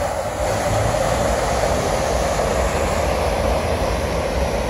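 Ford Ranger pickup ploughing through deep floodwater: a steady rush of splashing water thrown up by its wheels, with a low rumble underneath.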